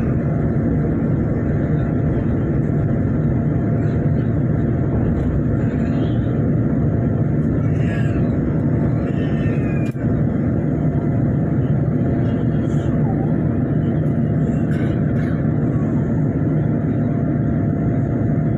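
Steady low rumble of a Boeing 787's engines and rushing air, heard from inside the passenger cabin, with a faint steady hum above it.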